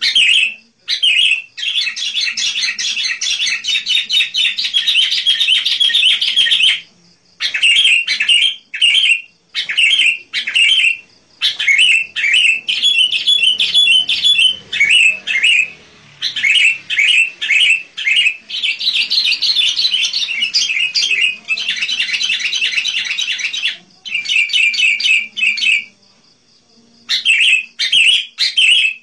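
Sooty-headed bulbul (kutilang) in full song: short, clear notes repeated phrase after phrase, broken by long runs of rapid chattering, with brief pauses between phrases.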